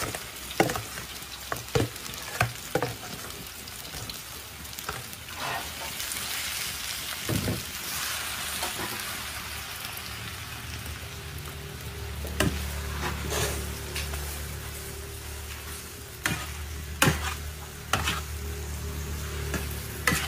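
Rice frying in a large steel wok: a steady sizzle, with a big metal spatula scraping and knocking against the wok at irregular intervals as the rice is tipped in and stirred. A low hum comes in about halfway through.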